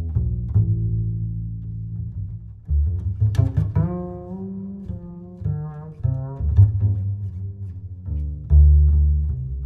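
Background music: a low bass line of plucked notes and longer held notes, with higher pitched notes coming in partway through.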